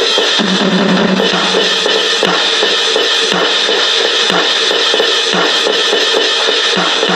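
V-Drums electronic drum kit played with a continuous wash of cymbals, over bass drum hits about once a second.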